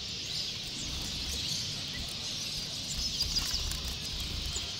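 A chorus of many caged small birds, finches among them, chirping and twittering all at once in a steady high-pitched din. A low rumble swells under it about three seconds in.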